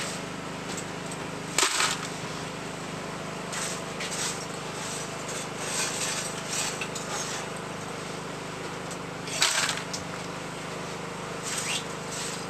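Cremated animal bone fragments rattling down a metal chute and clattering into a basin in bursts, the loudest about a second and a half in and again about three quarters of the way through, over a steady machine hum.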